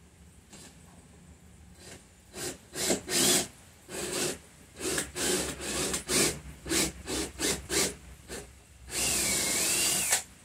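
Cordless drill working into a cedar board in about a dozen short trigger bursts, then one longer run of just over a second near the end, its motor whine dipping and rising under load.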